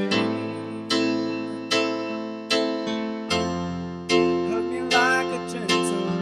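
Instrumental worship music: a keyboard playing piano-like chords, struck about every 0.8 seconds and left to ring.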